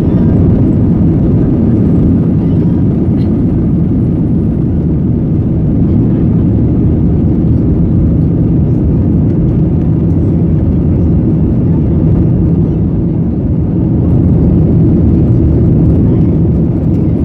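Airbus A319 cabin noise at takeoff thrust: a loud, steady, deep rumble of the jet engines and airflow as the plane lifts off the runway and climbs away.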